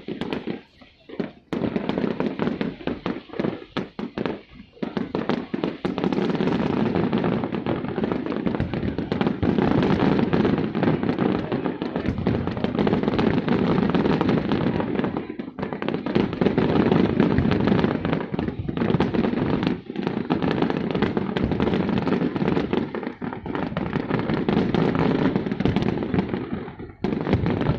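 New Year's fireworks display: a few separate bangs at first, then from a few seconds in a dense, continuous barrage of booms and crackling that thins out near the end.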